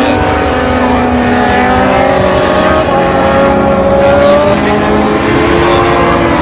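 Several racing superbike engines running hard on the circuit, their overlapping pitches gliding up and down as the bikes pass and pull away.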